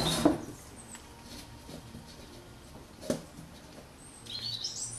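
Quiet background with a sharp knock at the start and a lighter click about three seconds in, then a bird chirping near the end.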